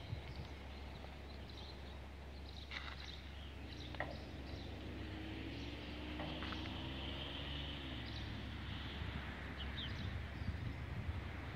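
Open-air ambience: a steady low rumble with a faint distant engine hum that swells and then drops in pitch midway, and scattered faint bird chirps.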